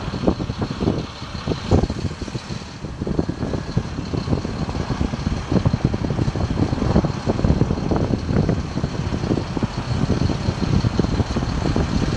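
Gusty wind buffeting the microphone over the steady running of a 2005 Freightliner FL60 bucket truck as its Altec boom lowers, with a faint high steady whine throughout.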